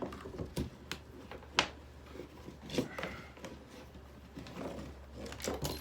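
Light knocks and clicks of objects being handled, a few scattered ones with a small cluster near the end, over a steady low hum.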